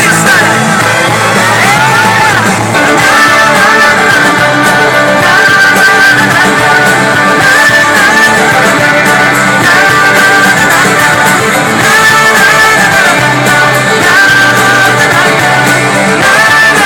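Loud rock-style music with a singing voice and guitar.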